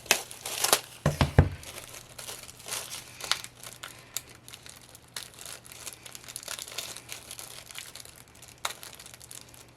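Thin plastic shrink wrap crinkling as stickers are peeled off it: a few loud crackles and low knocks in the first second and a half, then lighter, scattered crinkles with one sharper crackle near the end.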